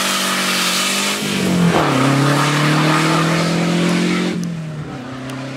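Fiat 127 with a 2.0-litre 16-valve turbo engine launching hard, tyres spinning with a loud hiss as the engine revs up. The pitch drops at a gear change just under two seconds in, climbs again, and drops at a second shift about four seconds in as the car pulls away.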